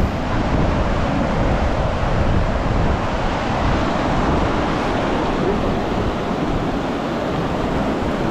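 Wind buffeting the microphone: a steady rushing roar with an uneven low rumble and no pitch to it.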